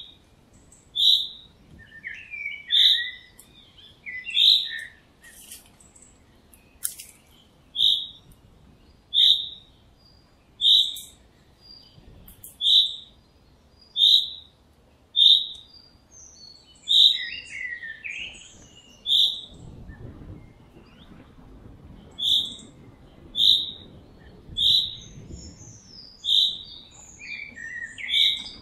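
A bird repeating a short, high chirp about every second and a half, with softer twittering between some of the chirps.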